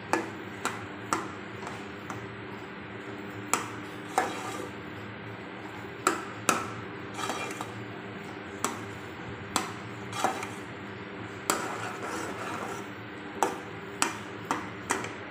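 Metal spoon stirring thick semolina halwa in an aluminium pot. It scrapes and knocks against the pot's side in sharp, irregular clicks about once a second, over a steady hum. The halwa has cooked down to a dry, thick mass with the water gone.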